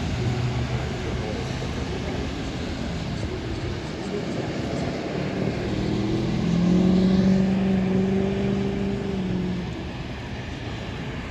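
Steady rain and wind noise, with a motor vehicle passing about halfway through: its hum rises, peaks and fades away over a few seconds.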